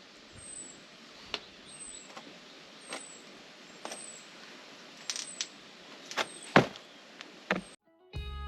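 A string of light knocks and clicks, roughly one a second and a few louder near the end, over a steady hiss, with a short high falling chirp repeating about once a second. It cuts off near the end and music begins.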